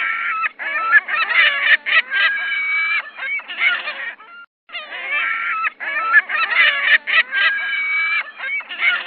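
Kakapo calling: a rapid series of squawking, honking calls with a few held notes. The same run of about four seconds is heard twice, with a short break in the middle.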